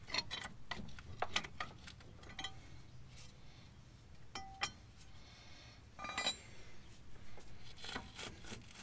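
Metal parts clinking and tapping as the front axle shaft and its seal are worked by hand in the steering knuckle: a scattered series of light clinks, with one short metallic ring about four and a half seconds in.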